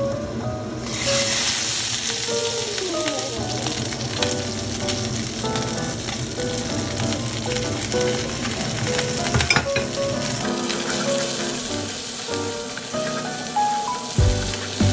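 Chicken pieces sizzling as they pan-fry in oil, the sizzle growing much louder about a second in as the glass lid comes off the pan. Later the chicken fries on with garlic, leek and green chili added, and a spatula knocks and scrapes the pan bottom near the end, over light background music.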